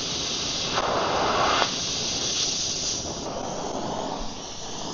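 Oxy-acetylene cutting torch's preheat flame hissing steadily while heating seized bolts, with the cutting-oxygen lever left off so the bolts are heated, not cut. The hiss swells louder for about a second shortly after the start.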